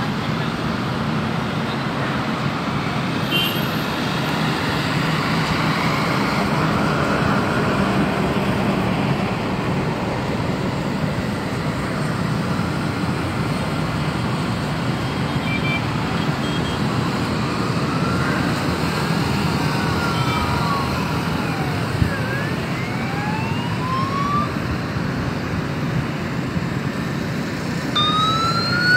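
Steady city traffic noise rising from the streets below, with an emergency-vehicle siren wailing up and down over it in the second half, louder near the end.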